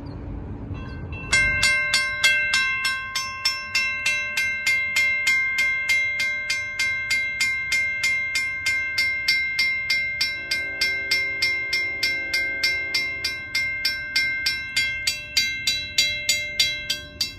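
WC Hayes electric railroad crossing signal bell ringing, its hammer striking the gong at a steady rate of about three strikes a second, each strike ringing on. The bell starts about a second in.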